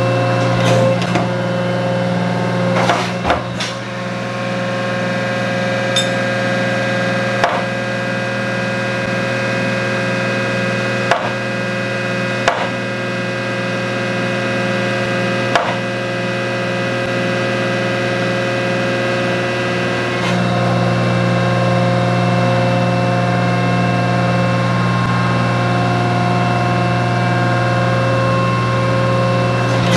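A 1943 metal planer running, its table travelling back and forth while it planes a cast-iron straight edge. The machine gives a loud steady hum with sharp clacks every few seconds. The hum changes about 20 seconds in.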